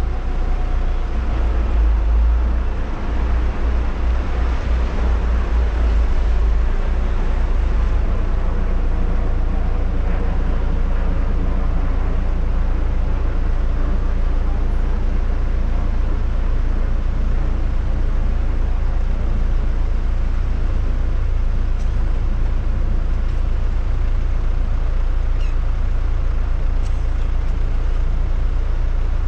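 Jeep 4x4 engines idling, a steady low hum, with a heavier, unsteady rumble in the first few seconds.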